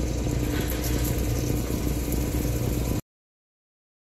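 Lapidary cabbing machine running, a steady motor hum with a low drone, before the stone is put to the 320-grit wheel. The sound cuts off suddenly about three seconds in.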